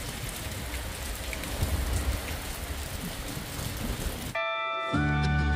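Steady rain falling on wet pavement, cut off abruptly about four seconds in and replaced by music with held tones and a bass line.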